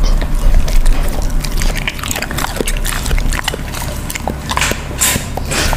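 A dog eating raw meat off a plate, heard up close: wet chewing, licking and lip-smacking, with irregular clicks of its teeth and a louder wet smack about five seconds in.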